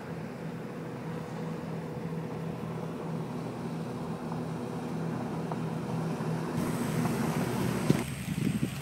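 A steady low machinery hum with outdoor background noise. Near the end the sound cuts abruptly to gusty wind buffeting on the microphone.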